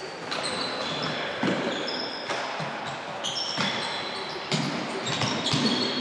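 Sneakers squeaking on a sports hall floor as players run and cut, many short high squeaks of varying pitch with scattered footfalls.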